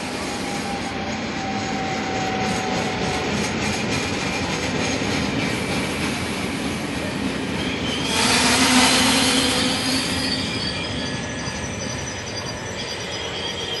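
Double-deck Trenitalia regional train rolling past on the rails, a steady rolling rush that swells louder about eight seconds in. Thin, high wheel squeal sets in over the last few seconds as the train's E464 electric locomotive approaches.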